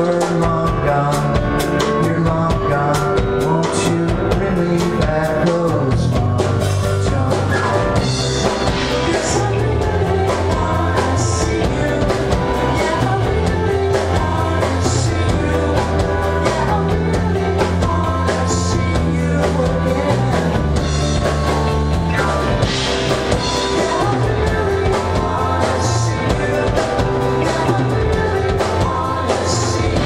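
Pop-rock band playing a song: drum kit, a steady bass line and guitar.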